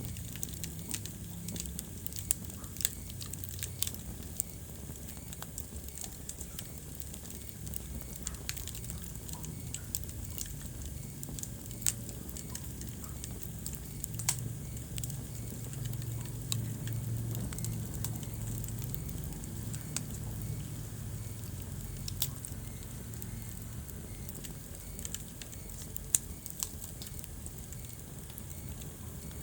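Wood fire burning in a fireplace, with frequent irregular sharp crackles and pops over a steady low rumble of the flames.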